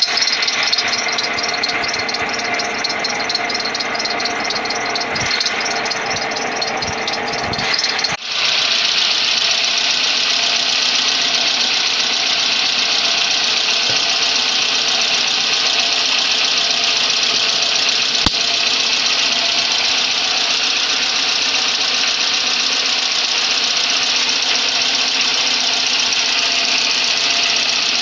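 Geely MK's engine running at idle with its drive belts squealing, a steady high-pitched whine over the engine; the sound changes abruptly about eight seconds in and carries on steadily.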